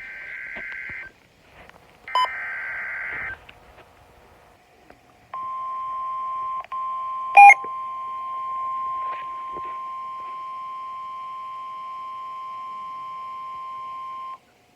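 Emergency Alert System warning signals: two short screeching data bursts of the SAME header, then after a gap a steady single-pitch alert tone of about nine seconds, typical of NOAA Weather Radio. The tone drops out briefly near its start and is hit by one sharp pop, the loudest sound here.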